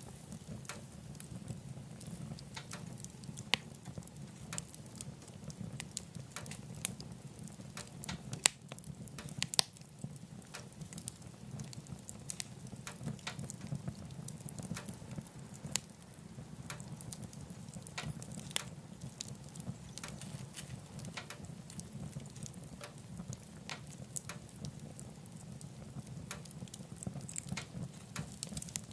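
Wood fire burning in a wood stove: a steady low rumble with irregular crackles and sharp pops from the burning logs, a few louder pops about a third of the way in.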